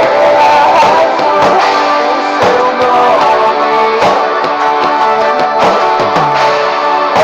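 Band music with guitar over a steady beat: an instrumental stretch of a pop-rock ballad, with gliding melody lines over the chords.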